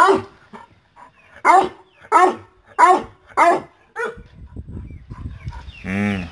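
Askal (Philippine native mixed-breed) dog barking in about six short, separate barks, eager for the banana it is about to be fed.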